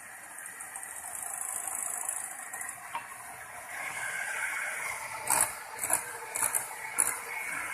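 Lemon juice going into cake batter in a mixing bowl and being worked in by hand, a soft steady swishing with four sharp clinks of the utensil against the bowl in the second half.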